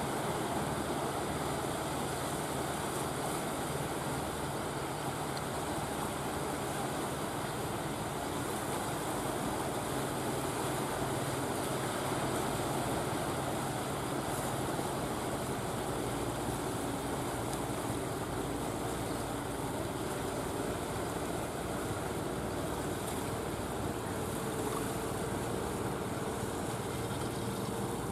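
Fishing boat's engine running steadily with a low hum as the boat motors through the water, over a constant wash of water noise.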